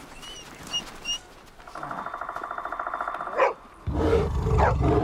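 Grey wolves snarling: a few short high whines, then a rasping growl about two seconds in, a sharp yelp, and a loud deep growl starting near the end.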